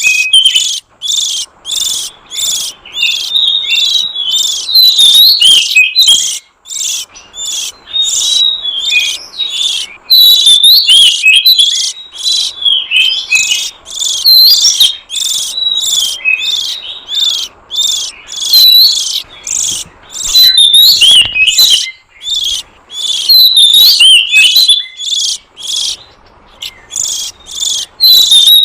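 Oriental magpie-robin (kacer) calling: a rapid run of harsh, sweeping high notes, several a second, coming in bursts with short breaks.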